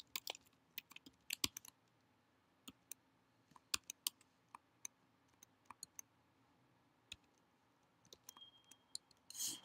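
Faint computer keyboard typing: single key clicks and short irregular runs of keystrokes with pauses between, and a brief rush of noise near the end.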